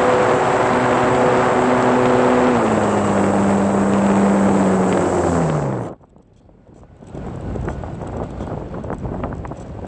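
RC plane's motor and propeller running steadily under heavy wind noise on the onboard phone's microphone. The pitch drops in a step about two and a half seconds in, then slides down and the motor stops about six seconds in as the throttle is cut. After a moment of quiet, wind buffets the microphone.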